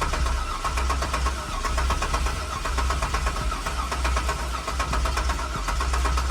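Box-body Chevy's engine being cranked over by its starter motor in a long, steady crank to build oil pressure. The starter is engaging cleanly, a sign it is wired up right and needs no shim.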